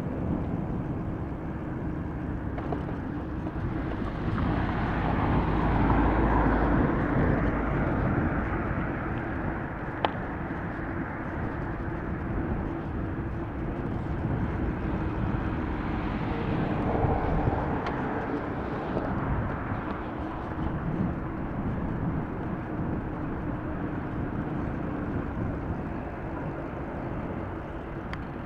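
Wind buffeting the microphone of a bike-mounted or handheld camera on a moving mountain bike, over a steady rumble of street traffic and tyre noise. The rush swells twice, and there is a single sharp click about ten seconds in.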